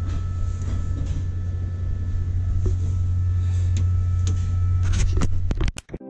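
Steady low machinery drone aboard a vessel, with a few clicks and knocks near the end before the sound cuts off abruptly.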